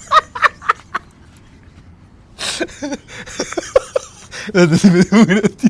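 A person's voice making short, uneven vocal sounds in several bursts, not recognisable words.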